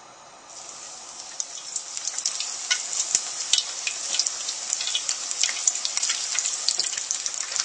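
Prawn toast triangles frying in hot oil in a frying pan: a steady sizzle with many sharp crackles. It starts about half a second in and grows louder as more pieces go into the pan.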